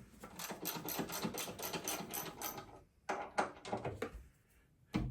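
Rapid mechanical clicking from a hand tool working on the car's front end: a run of about two and a half seconds, a brief pause, then a shorter run.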